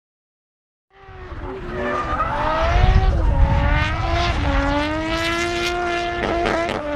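Nissan R33 Skyline drift car's turbocharged straight-six, starting about a second in, revving and dropping in pitch through a sustained drift, with tyre noise and a run of sharp cracks in the second half.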